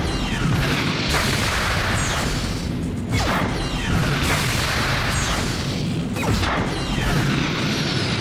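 Sci-fi sound effects of jet-powered flying mecha (Storm Sworders) passing by: a run of whooshing flybys about every second or two, each falling in pitch, over a steady low engine rumble.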